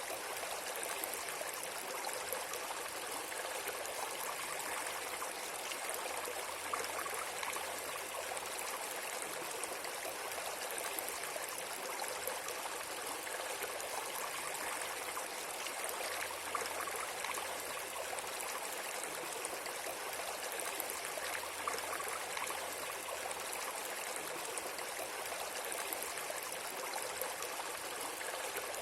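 Water flowing steadily, like a running stream, an even rushing hiss that does not change.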